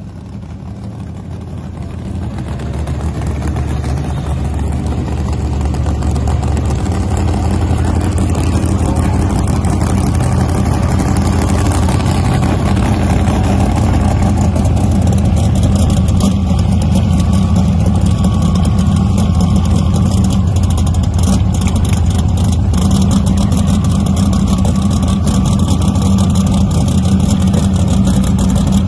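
Drag race car's engine idling loudly and steadily, getting louder over the first few seconds as the car comes up close.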